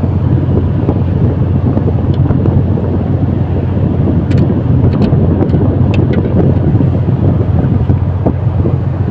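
Wind buffeting the microphone: a loud, steady low rumble. About four to six seconds in come a few light metallic clicks from hand tools working on the radar pedestal's fittings.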